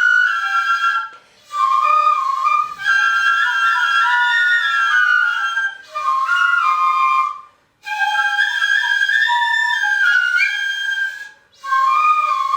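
Several shinobue (Japanese bamboo transverse flutes) playing a melody together in more than one part, in phrases broken by short pauses.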